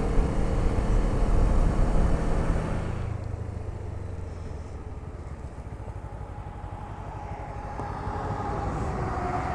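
Motorcycle engine running with wind noise, dropping to a quieter, steadier sound about three seconds in as the bike slows; a steady engine tone comes up near the end.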